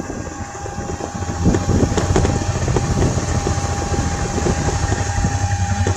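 Car driving along a road, its engine humming low with frequent knocks and rattles; it gets louder about a second and a half in.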